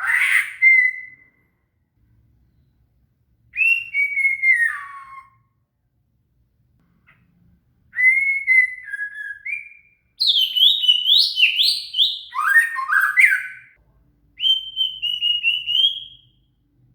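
White-rumped shama (murai batu) singing: five loud phrases of clear whistled notes that slide up and down, the busiest phrase near the middle, with short pauses between phrases.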